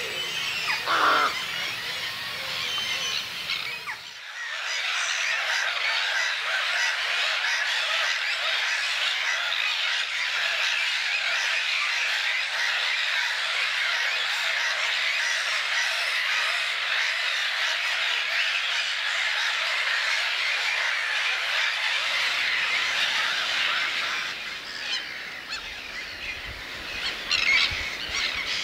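A large flock of birds calling all at once, a dense chorus of overlapping calls that starts abruptly about four seconds in and thins out near the end, leaving a few separate calls.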